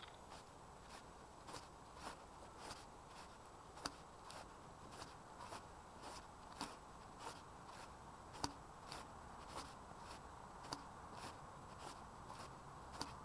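Faint footsteps of someone walking at a steady pace, a soft crunch about twice a second, over a low steady hiss.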